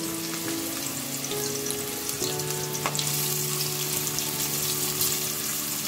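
Sliced onions sizzling as they fry in hot oil in a large metal pot, stirred with a wooden spoon.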